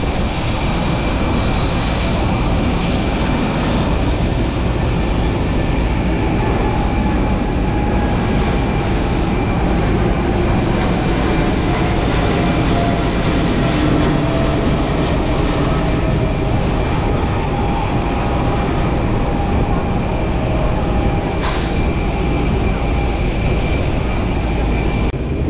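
Steady running noise of a moving vehicle heard from inside, a continuous rumble and hiss with faint hums that drift slightly in pitch.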